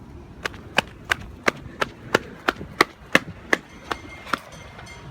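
A quick, even run of about a dozen sharp knocks, roughly three a second, stopping shortly before the end.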